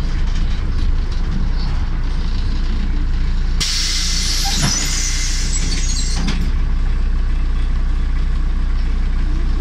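Cabin of a MAZ 105 articulated city bus: steady low diesel engine and road rumble. A loud burst of compressed-air hiss from the bus's pneumatic system starts suddenly a few seconds in and lasts about two and a half seconds.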